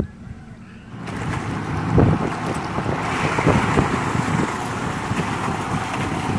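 KATO HD512E excavator's diesel engine running as it works, with wind buffeting the microphone. About a second in the sound jumps from a quieter low hum to a louder, noisier one.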